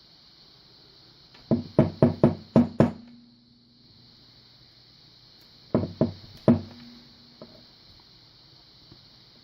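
Sharp knocks on a lock being gutted, likely tapped to work its pins and springs loose. There is a quick run of six, then three more a few seconds later, each with a short low ring.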